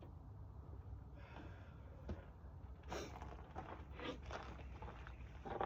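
Scattered rustling and scraping handling noises, strongest about three seconds in, over a low steady hum.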